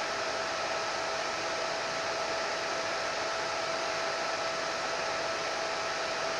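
Hair dryer running steadily: a constant rush of blown air with a steady motor whine through it.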